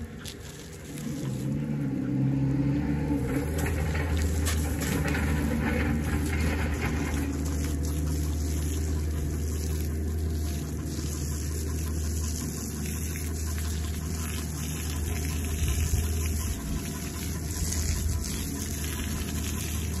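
Water spraying steadily from a garden hose nozzle and splashing onto a horse, with a steady low hum underneath.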